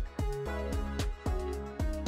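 Background music with a steady beat: a regular kick drum over a sustained bass line and chords.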